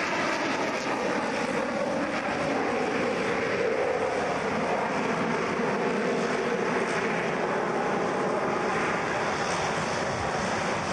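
Twin-engine propeller aircraft flying a display pass overhead, its engines making a steady drone that slowly shifts in pitch as it banks.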